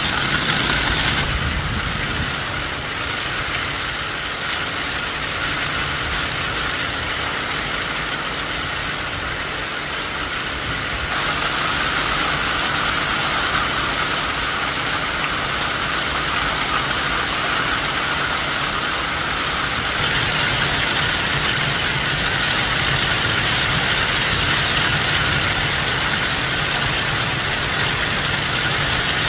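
Heavy rain pouring down, a loud, even hiss that changes tone abruptly a few times.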